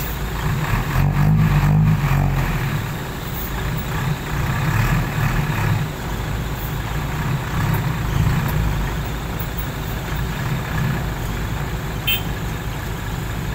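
Hino Mega dump truck's diesel engine running under load, its revs rising and falling several times, most strongly about a second in, as the rock-laden truck works through slippery mud.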